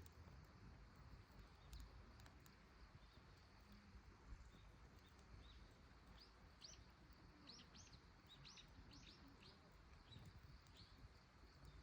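Faint bird chirps: a quick series of short, high calls about halfway through, over a very quiet outdoor background.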